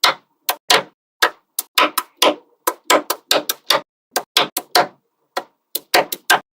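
Small neodymium magnetic balls snapping together, one after another, in an irregular run of sharp clicks, about four a second and often in quick pairs.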